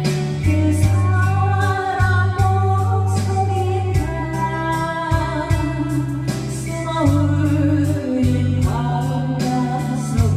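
A song with a voice singing long, wavering held notes over a band, with a steady bass line and a regular drum beat.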